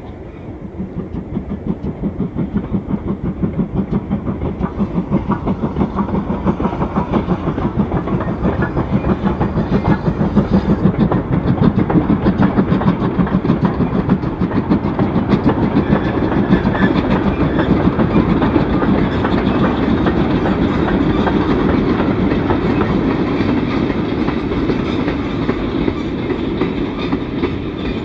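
GWR pannier tank steam locomotive working a goods train. Its rhythmic exhaust beats grow louder over the first ten seconds or so, then hold steady, along with the clatter of wagon wheels over the rail joints.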